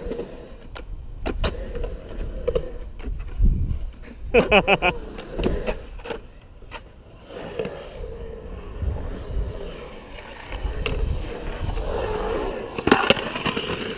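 Skateboard riding through a concrete bowl: a low rumble of the wheels rolling on concrete, broken by sharp clacks and knocks of the board.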